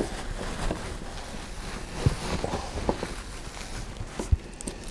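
Hammock fabric rustling as it is handled and bunched up by hand, with a few light knocks. A sharper knock comes near the end.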